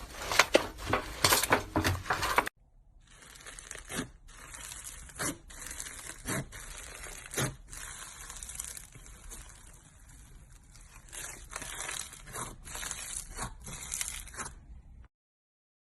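Crunchy slime being squeezed and crushed by hand: dense, loud crackling and popping. About two and a half seconds in it drops to a quieter, finer crackle with occasional sharp pops, then cuts off abruptly shortly before the end.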